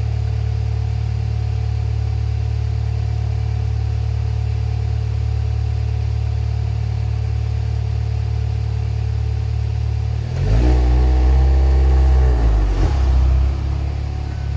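Car exhaust idling steadily; about ten seconds in the engine is revved up sharply and held high for about three seconds, then drops back to idle.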